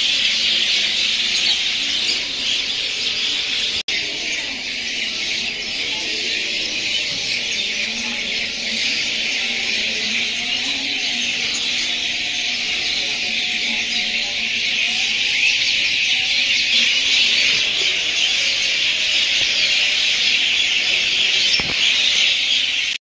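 A dense, steady, high-pitched chorus of insects, cutting off abruptly at the end.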